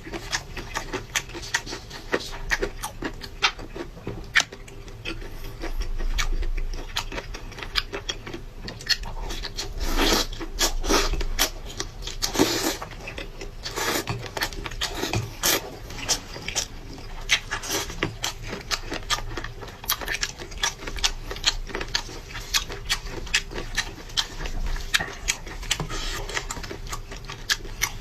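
Close-miked eating sounds of a person eating skate: irregular wet smacking and chewing clicks, several a second, with a few longer sucking smears.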